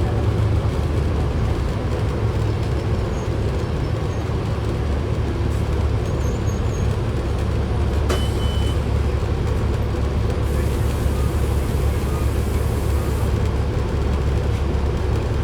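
Inside a 2010 Orion VII NG city bus on the move: steady engine and road rumble, with the body rattle this bus is known for. A sharp click with a brief high beep about eight seconds in.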